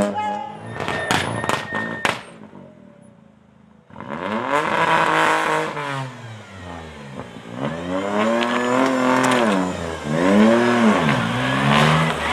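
Peugeot 208 rally car's engine revving hard through the gears as it approaches, its pitch climbing and dropping back with each upshift. In the first two seconds there is a run of sharp cracks, then about two seconds of near quiet before the engine comes in.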